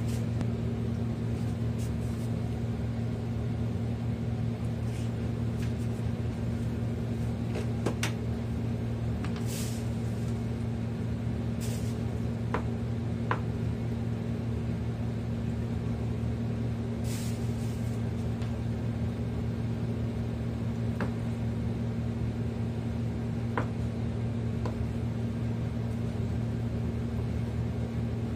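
A steady low hum made of two constant low tones, with scattered light clicks and knocks from kitchen work while ingredients are being prepared.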